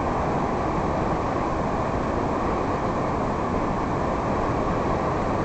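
Steady rushing rumble of a bicycle riding along a forest dirt trail: wind buffeting the microphone over the rolling of the tyres.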